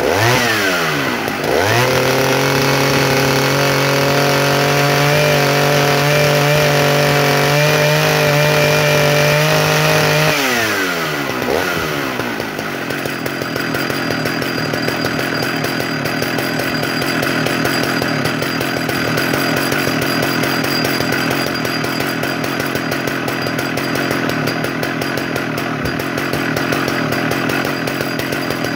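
Modified Jonsered 111S two-stroke chainsaw revved up. It blips and drops right at the start, then holds at high revs for about eight seconds, falls away about ten seconds in, and settles to a steady idle.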